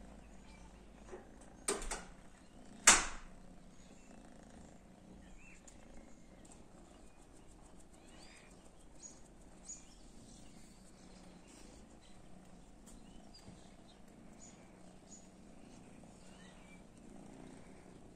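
Two sharp knocks about a second apart, the second much louder, then a quiet background with faint, scattered high chirps.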